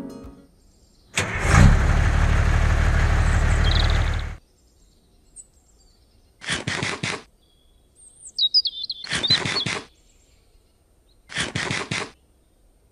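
Added sound effects: first a loud noisy sound of about three seconds over a low steady hum, then birds chirping and short crunchy bursts repeated every two seconds or so, like cattle munching grass.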